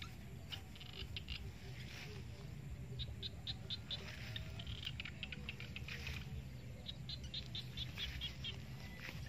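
Outdoor ambience: runs of quick, high-pitched chirps from small animals, in clusters about three seconds in and again around seven to eight seconds in, over a steady low rumble.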